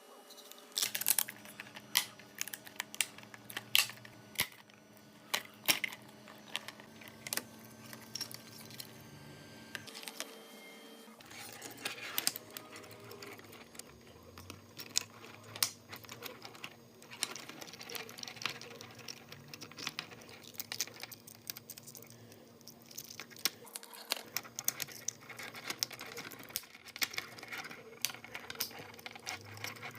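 Irregular sharp clicks and light clatter of small hard parts over a steady hum.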